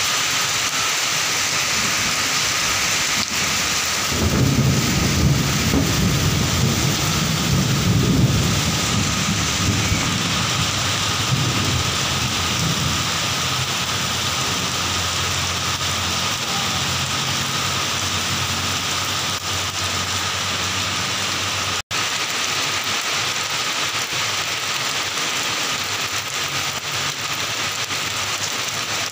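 Heavy rain falling steadily, with a low rumble of thunder rising about four seconds in and dying away by about twelve seconds. The sound cuts out for an instant about three-quarters of the way through.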